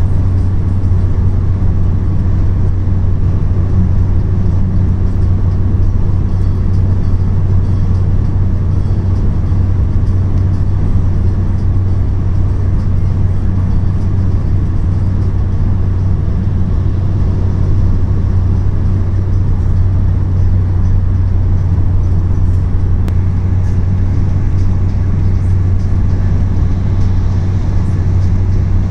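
Steady low drone of a car cruising at highway speed, heard inside the cabin: engine and tyre-on-road noise.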